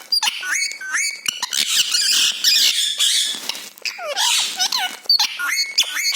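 Pet parrot calling: a run of short whistled notes that slide up and down, mixed with harsh squawks and sharp clicks.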